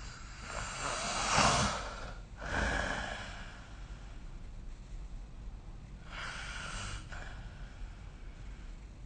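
A sleeping person snoring: a loud snoring breath peaks about a second and a half in, a second breath follows straight after, and a weaker breath comes about six seconds in.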